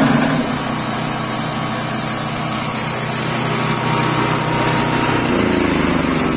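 The 18 hp WEIMA petrol engine of a DS-120BD18 branch chopper running steadily at working speed. Its pitch shifts about five seconds in.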